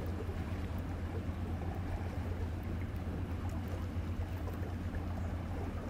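Low, steady engine drone of inland tanker ships under way on the river, heading toward the listener.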